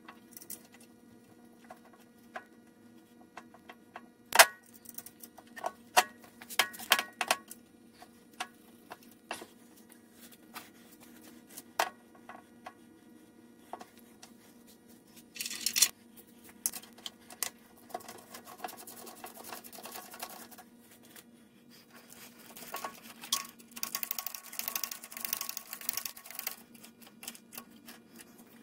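Metal clinks and knocks as the cast-iron quick-change gearbox of a Sheldon lathe is handled and fitted into place, some strikes ringing briefly. In the second half come stretches of scraping and rustling as hands and a tool work inside the gearbox, over a faint steady hum.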